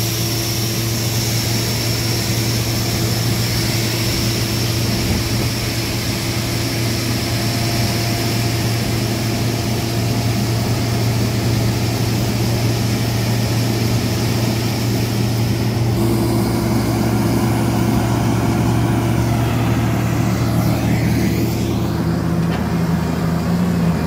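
Steady drone of farm machinery: a combine harvester unloading soybeans through its auger into a tractor-drawn haul-out bin. The engine sound changes character about two-thirds of the way through.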